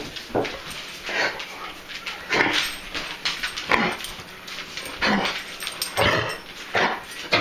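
Dog coughing from kennel cough: a run of short, harsh hacking coughs, roughly one a second.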